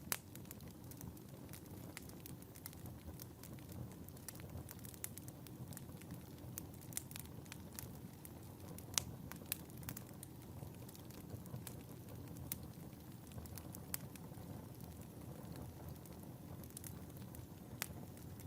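Wood fire burning in a fireplace: a soft steady rumble of flames with frequent irregular crackles and a few sharper pops.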